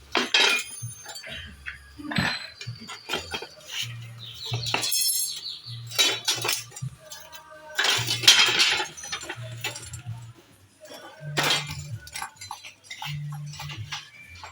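Background music with a steady low bass line, with scattered metallic clinks and knocks over it.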